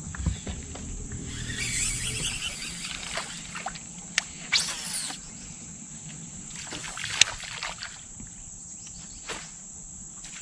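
Baitcasting fishing reel being cast and reeled: a short whirring rush about halfway through and a few sharp clicks, over a steady high-pitched insect drone.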